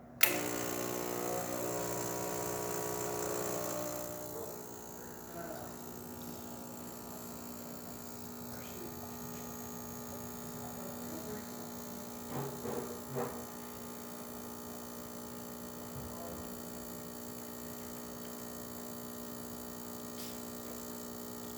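Gaggia espresso machine's pump switching on with a click and buzzing steadily while pulling a test shot after a service, louder for the first few seconds and then settling slightly lower, with a few small knocks about twelve seconds in.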